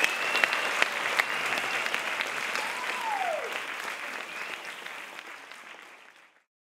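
Audience applauding with a whistle over it, the applause fading out near the end.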